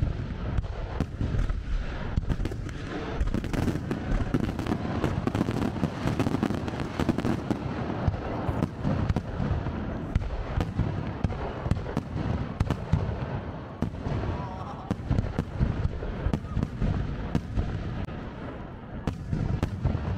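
Fireworks display: a dense, continuous barrage of shell bursts, many sharp bangs and crackles a second over a steady rumble.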